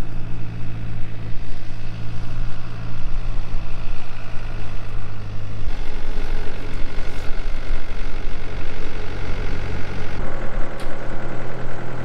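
Farm tractor's diesel engine running at a steady speed, its pitch shifting abruptly twice, about six and ten seconds in.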